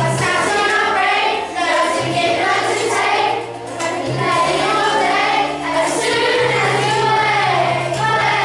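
A group of children singing a song together, over an accompaniment of long held low notes that change about every two seconds.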